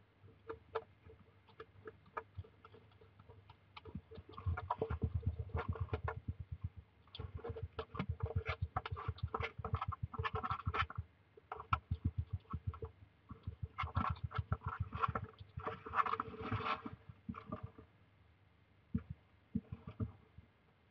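Hedgehog chewing dry biscuit food and shuffling about on a wooden floor: bouts of rapid wet clicks and crunches that thin out to a few scattered clicks near the end.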